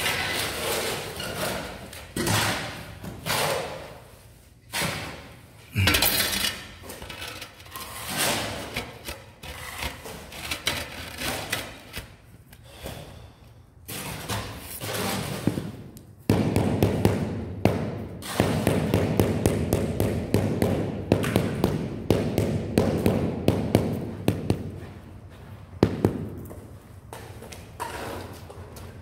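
Floor tiling work: scraping strokes in cement mortar, then, from a little past halfway, a long run of quick dull knocks as a mallet beds a large floor tile into the mortar.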